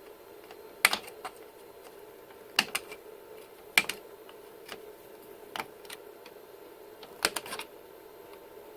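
Plastic cable drag chain links being snapped shut by hand: a string of sharp, irregular plastic clicks, about eight in all, two of them close together near the end.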